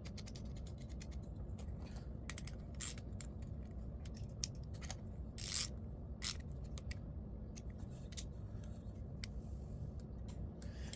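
Scattered light clicks and a few short scrapes of small metal parts being handled and fitted while a snowblower carburetor is put back together, over a steady low hum.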